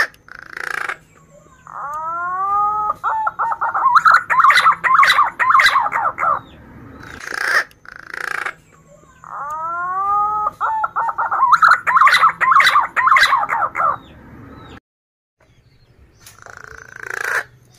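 Male punai daun green pigeon singing twice: each phrase opens with a few rising, whistled notes and runs on into a fast warbling trill. Short hissy bursts come between the phrases.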